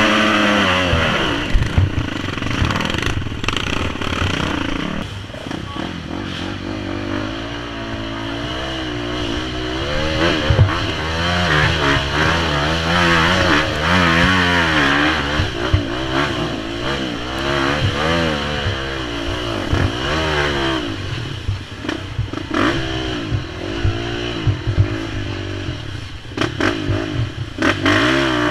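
Dirt bike engine heard from on board, its revs rising and falling constantly as the bike works through deep mud and ruts. Knocks and clatter come from the bike over the rough ground, thickest near the end.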